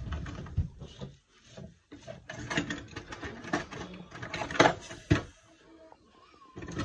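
A knife slicing through a roast pork joint's charred, glazed crust and scraping against a plastic cutting board: irregular rasping strokes and clicks, with two sharper knocks late on as the blade hits the board.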